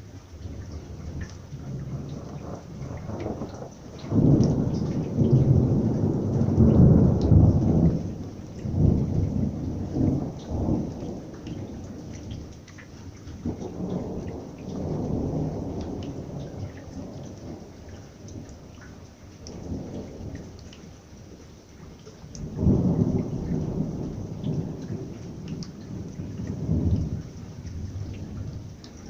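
Thunder rumbling in several long peals over steady rain. The loudest peal starts about four seconds in and lasts several seconds, and another strong one comes a few seconds before the end.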